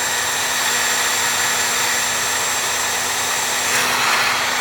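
Electric heat gun running steadily, blowing hot air to shrink heat-shrink tubing over a soldered wire joint, with a steady hum under the rush of air.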